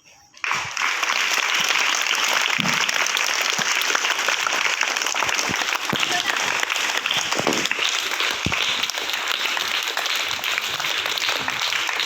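Audience clapping, starting suddenly about half a second in and going on steadily as a dense patter of many hands.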